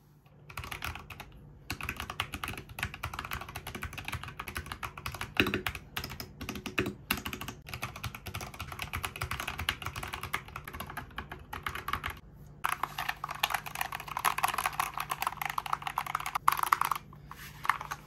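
Typing on a mechanical keyboard fitted with MSA-profile keycaps: a continuous clatter of keystrokes. There is a short pause about twelve seconds in, then a faster, denser burst of typing.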